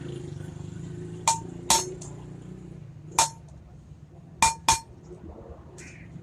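Metal tapped sharply with a hammer, five short ringing strikes, mostly in close pairs.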